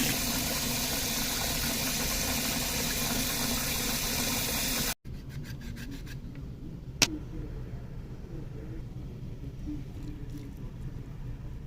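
Water running steadily from a kitchen tap, cut off abruptly about five seconds in. Then a quieter background with small kitchen knocks and one sharp click.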